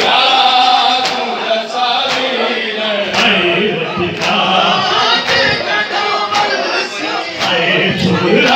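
Male reciters chanting a noha, a Shia mourning lament, in unison into a microphone, with sharp beats about once a second.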